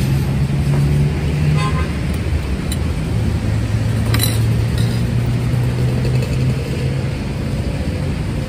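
Road traffic noise carried by a steady low engine hum, with a short vehicle horn toot about two seconds in and a sharp click a couple of seconds later.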